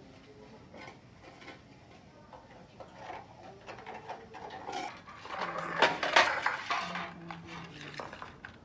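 Steel pots, plates and bowls clattering and clinking against each other as they are handled and washed, with a burst of loud clinks about six seconds in.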